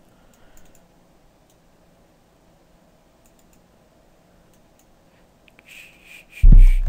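Faint mouse clicks, then near the end a loud, deep sample from an Ableton drum rack starts playing back, with a steady high tone riding over it.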